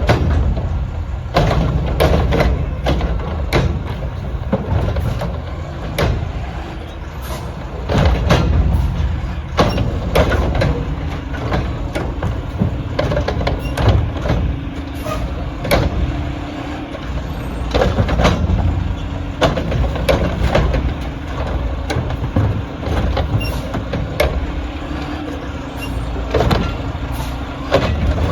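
Garbage truck running, a low rumble broken by many sharp knocks and clanks. About ten seconds in a steady hum joins it and holds until near the end.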